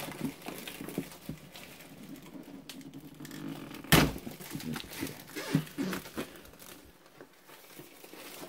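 Clear plastic shrink-wrap being pulled and peeled off a cardboard box, crinkling and crackling in small bursts. A single sharp thump about four seconds in is the loudest sound.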